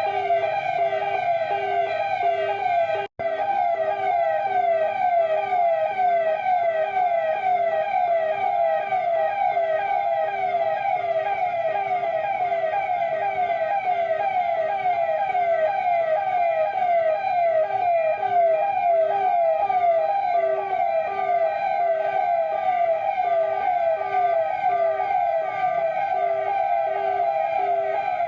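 Electronic siren sounding continuously in a fast, repeating sweep of about two cycles a second, the signal for people to stop and stand where they are. The sound cuts out for an instant about three seconds in.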